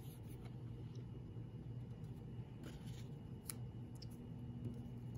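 Faint rustling and a few light scuffs of construction paper being handled and pressed flat by hand, over a low steady room hum.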